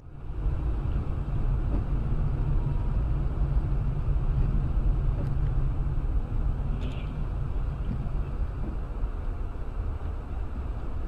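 Steady low rumble of a car on the move: engine and road noise, with a faint brief high sound about seven seconds in.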